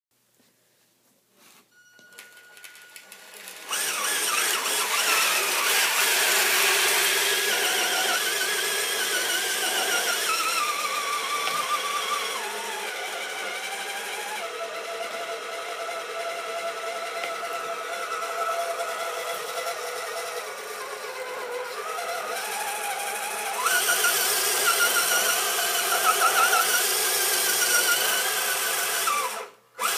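Electric motor and gears of a radio-controlled scale pickup truck whining under load as it pulls a pallet sled across concrete, the pitch rising and falling with the throttle. It starts about four seconds in, eases through the middle, gets louder again for the last few seconds and cuts off just before the end; a short steady beep comes before it starts.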